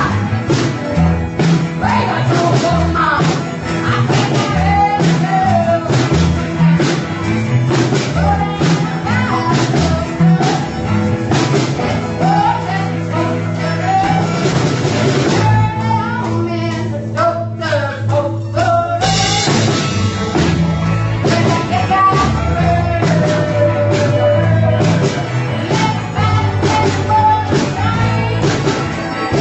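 Rock band playing a song with a lead singer over drums and guitar. About halfway through, the drums drop out for a few seconds, then come back in.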